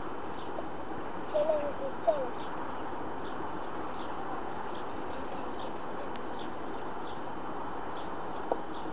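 Birds calling: faint high chirps repeating about once a second, with a couple of short lower calls about a second and a half in, over a steady background hiss. A small tap near the end.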